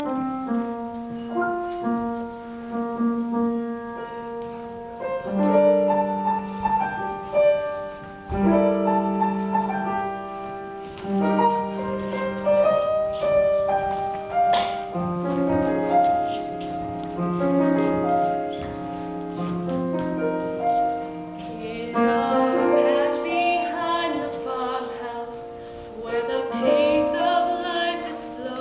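Music with piano and sustained chords, the melody moving in held notes. Wavering high voices or instruments with vibrato join about 22 seconds in.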